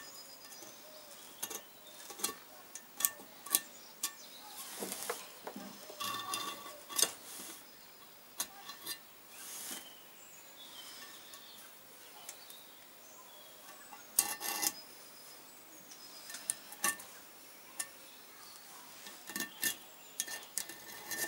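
Hand tool working the edges of a Kawasaki 500 twin's aluminium cylinder block to remove burrs: scattered sharp metal clicks and taps, with short scrapes about five and nine seconds in.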